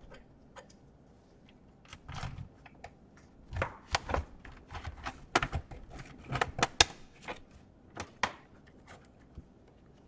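Irregular plastic clicks and knocks from a Lenovo IdeaPad 100 laptop being handled, its keyboard deck pressed and pried at. The clicks start about two seconds in, come thickest in the middle and die away near the end.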